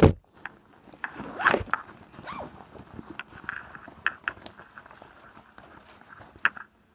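Handling and rustling noises close to the microphone: a loud knock right at the start, then scattered clicks and rustles with a couple of short squeaky glides in the first few seconds.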